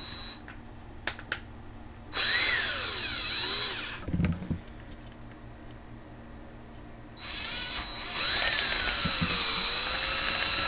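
Electric drill run twice, first for about two seconds, then for about four, its motor pitch sagging and recovering as the bit cleans up a freshly drilled hole in plastic. A couple of small clicks come before the first run.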